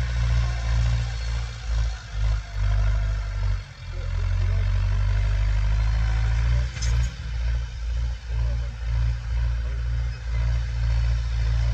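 Massey Ferguson 290 tractor's four-cylinder diesel engine running under load while ploughing: a heavy low rumble that dips briefly now and then.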